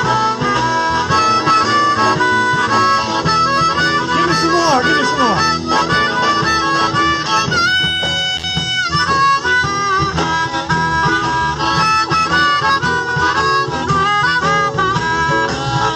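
Amplified harmonica solo played through a vocal mic over a live rock band with electric guitars and keyboards, with a long held harmonica chord a little past halfway.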